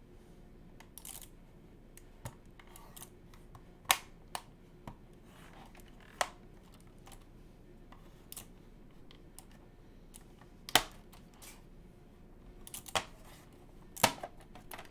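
Plastic keyboard case being pried apart by hand: irregular sharp plastic clicks and snaps, the loudest about four, eleven and fourteen seconds in, as the clip-together case halves give.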